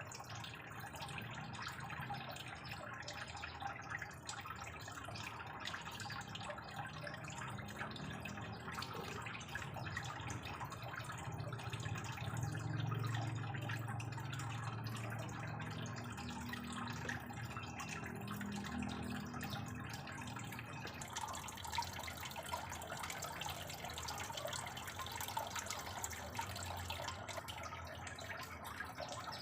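Water trickling and dripping steadily.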